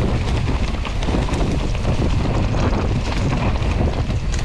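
Mountain bike being ridden down a rough enduro trail: wind buffets the microphone over a constant clatter and rattle of tyres and bike over the ground.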